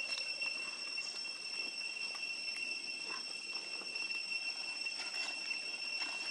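Steady high-pitched drone of insects, a continuous ringing of several held tones, with a few faint clicks scattered through it.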